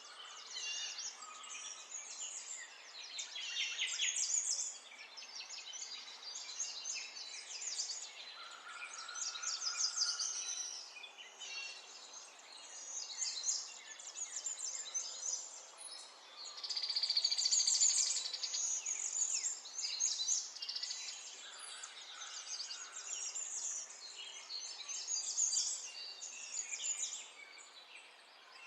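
Many small birds chirping and singing over a faint steady hiss, with a rapid trill about seventeen seconds in.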